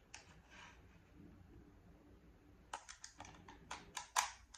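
Hard plastic clicking and rattling as a small accessory is fitted onto a plastic gel blaster pistol: a quick run of about ten sharp clicks in the second half, the loudest one near the end.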